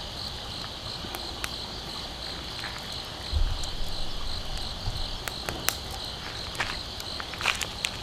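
Insects chirping in a steady, pulsing high trill. From about five seconds in, a few sharp clicks and crunches join it, growing more frequent near the end.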